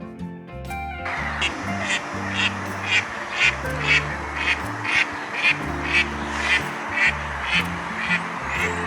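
Duck quacking over and over at an even pace, about two quacks a second, starting about a second in, over steady background music.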